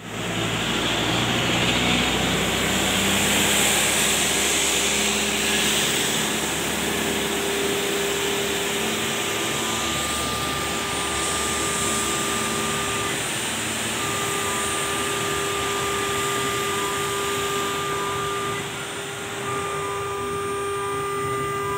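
CNC router spindle whining steadily as the bit engraves a blue-faced board, with the hiss of cutting over it; the whine breaks off briefly twice, once near the middle and once near the end.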